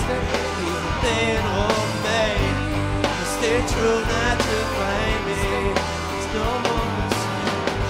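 Rock band playing live: electric guitars, bass guitar and drum kit, with regular drum and cymbal hits and a wavering melody line over the top.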